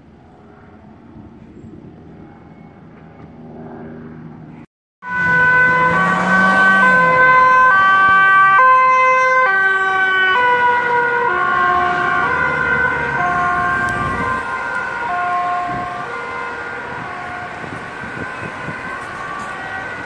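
Ambulance two-tone siren alternating between a high and a low note, cutting in loud about five seconds in after a quieter stretch of street noise. Both notes drop a little in pitch about ten seconds in, and the siren then slowly fades as the vehicle moves away.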